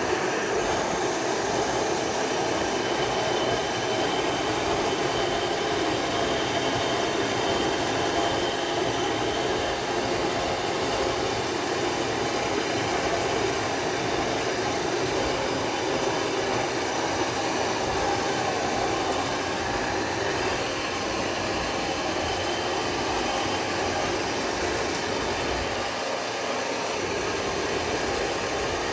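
Motorized mixing machine running steadily as it churns spawn into aged waste-cotton substrate, a continuous mechanical noise that does not change.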